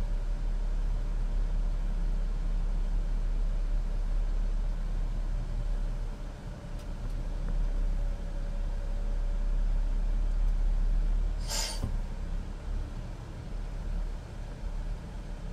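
Cat 3126B six-cylinder diesel of an M1078A1 LMTV military truck running under way, heard inside the cab as a steady low rumble. About two-thirds of the way through comes one short, sharp hiss of compressed air from the truck's air system.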